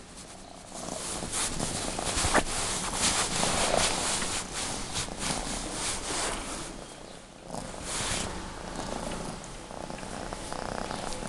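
A house cat purring steadily, with bursts of rustling from the bed sheet as it wriggles and plays with a hand.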